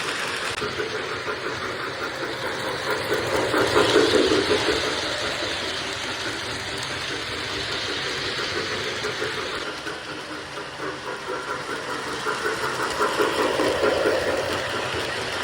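Freight locomotive engine running with a steady, rhythmic throb, swelling louder twice: about four seconds in and again near the end.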